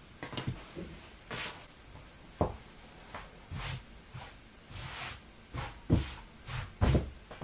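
Hands smoothing and straightening a knit hoodie flat on a tabletop: short rustling, brushing strokes of the fabric, with a few soft thumps of the hands on the table, the loudest near the end.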